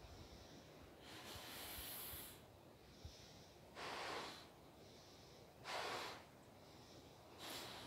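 A 24-inch clear latex balloon being blown up by mouth: four breathy puffs, the first about a second in and the longest, with fainter breaths drawn in between them.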